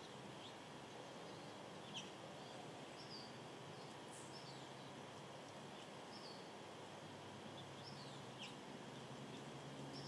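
Faint outdoor ambience: a steady background hiss with short, high bird chirps every second or two, the loudest about two seconds in.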